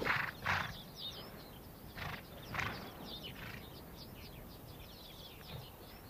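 A Przewalski's horse blowing through its nostrils in short breathy puffs, two pairs about two seconds apart, with small birds chirping faintly throughout.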